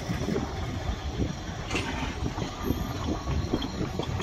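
Narrow-gauge Ffestiniog Railway passenger coaches rolling slowly past: a steady low rumble from the wheels, with frequent short knocks and one sharper clank about two seconds in.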